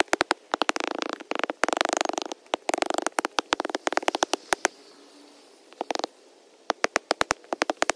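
Steel-plate hand tamper working the sand base of a tee pad: fast runs of sharp clicks and knocks, with short scraping sounds in the first few seconds.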